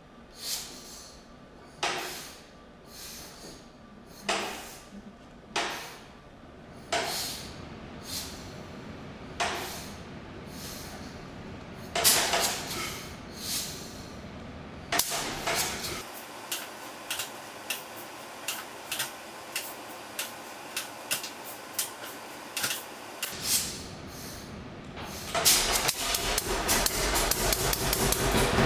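Sharp, irregular knocks about a second or more apart while the 1941 John Deere Model B's two-cylinder engine is being hand-started, coming closer together past the halfway point. Near the end the engine catches and runs with a fast popping beat that grows louder.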